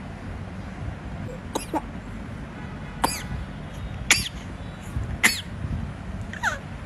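A baby giving five short, high-pitched squeals of delight about a second apart, each one dropping quickly in pitch.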